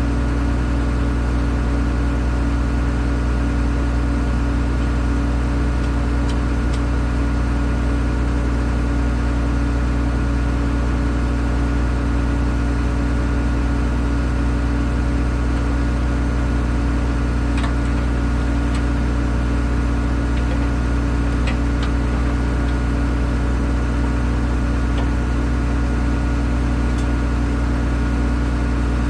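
Large diesel engine idling steadily at a constant speed, with a few faint clicks now and then.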